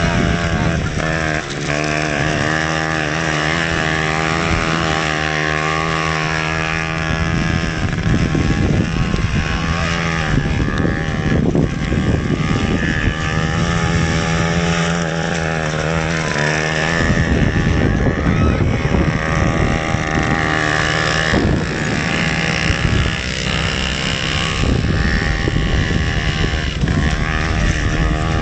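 Small motorcycles racing on a grass course, their engines buzzing and revving, the pitch rising and falling as the riders accelerate and ease off around the turns.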